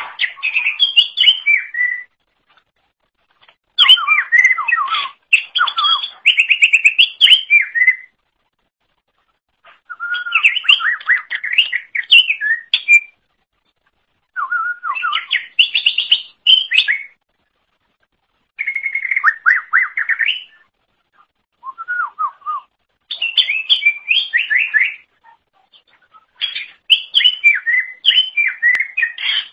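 Cucak ijo (green leafbird) singing in loud, varied phrases of quick whistled and chattering notes. The phrases last two to four seconds each, with short pauses between them, about eight in all.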